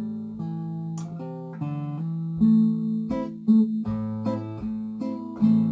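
Wayne W-20 nylon-string classical guitar played unamplified, fingerpicking a slow melody of single notes over sustained bass notes.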